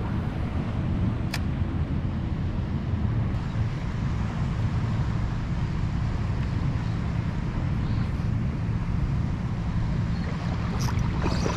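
Steady low rumble of wind buffeting the microphone of a body-worn action camera, with small waves lapping in the shallows.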